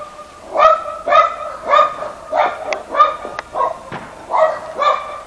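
A dog barking over and over at a steady pace, about two barks a second.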